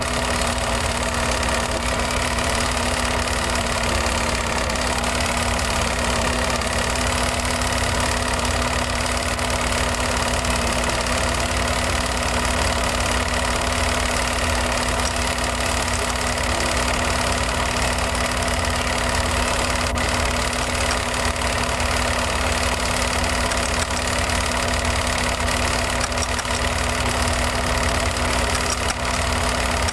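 A steady droning hum over a low rumble and hiss, unchanging throughout.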